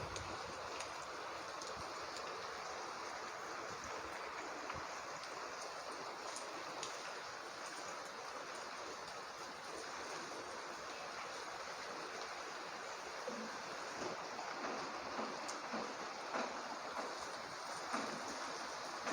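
Heavy rain falling steadily, an even hiss of water with scattered sharper drop ticks.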